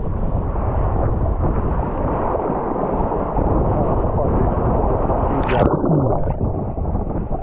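Wind buffeting an action camera's microphone over the rushing splash of water under a kiteboard riding downwind. There is a sharper splash about five and a half seconds in.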